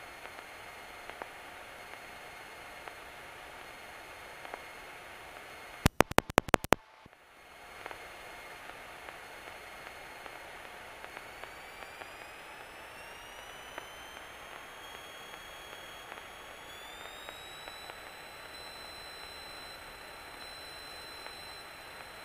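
Cessna 172's engine and propeller running at low power with a steady hum. From about halfway the pitch climbs in two steps and then holds, as the throttle is opened for the takeoff roll. About six seconds in there is a quick run of six or seven sharp clicks with a brief dropout after them.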